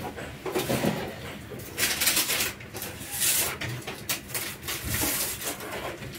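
Sheet of baking paper rustling and crinkling in several short bursts, handled on an electric sandwich toaster.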